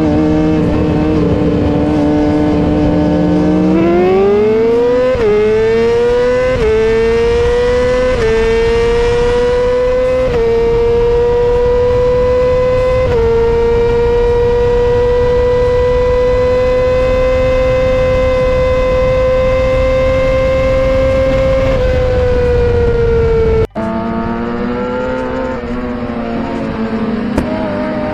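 A sport bike's high-revving inline-four engine pulls hard through the gears. The revs climb, with a short dip at each of five quick upshifts, then hold steady near the top for several seconds before easing off. After a sudden cut, a second run starts at lower revs and climbs again.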